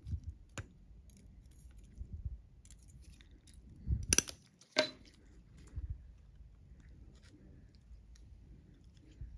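Steel surgical instruments (scissors, needle driver, tissue forceps) clicking and clinking as they are handled. There is a sharp click just after the start, two louder ones about four and four and a half seconds in, and fainter ticks and soft handling thumps between them.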